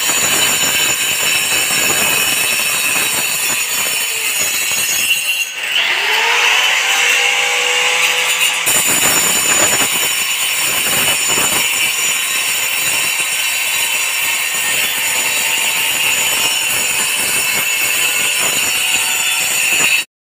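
Electric drill running continuously as it bores into the ceiling. About five seconds in it briefly slows, then spins back up.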